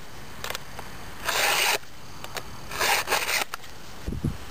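Round chainsaw file rasping across the cutter teeth of a Stihl saw chain: two slow, light strokes about a second and a half apart, the chain being hand-sharpened at a 30-degree angle without pressing.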